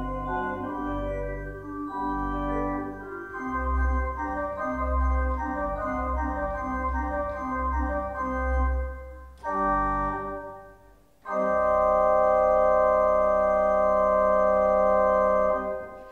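Organ played on manuals and pedals, deep pedal bass notes under moving chords. After a brief break and a short chord, a loud final chord is held for about four seconds and released near the end.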